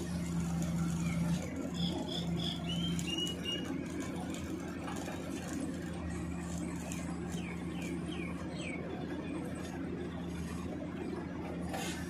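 Steady low hum of the hydraulic GIKEN sheet-pile press-in machine and its power unit at work, with birds chirping in two short runs of quick sliding notes.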